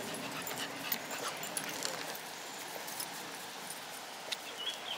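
Dogs moving about on a gravel path: scattered crunches and clicks of feet on the stones.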